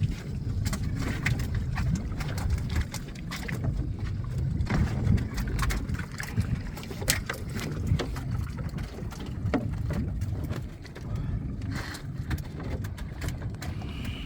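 Steady low rumble of wind and water around a small open boat, with frequent short clicks and knocks from handling a wire fish pot and the fish taken from it.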